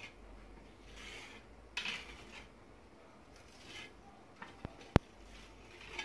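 Metal putty knife scraping and smoothing Aguaplast filler paste over a wall, in about four separate strokes, with a sharp click about five seconds in.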